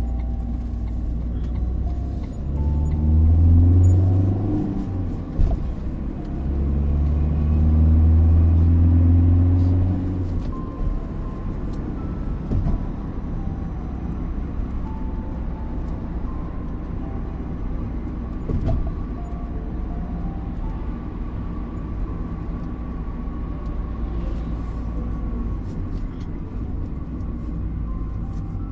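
Car driving, with a steady low rumble of engine and road noise. Twice, about three seconds in and again from about six to ten seconds, the engine note swells and rises in pitch before settling back to the steady drone.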